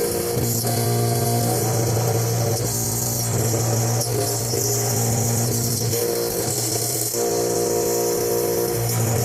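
CNC machine running while it machines an enclosure: a steady low hum under a high hiss.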